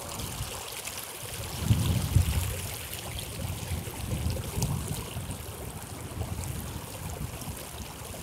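River water flowing and rippling around wading anglers, a steady watery hiss, with irregular low rumbles that are loudest about two seconds in.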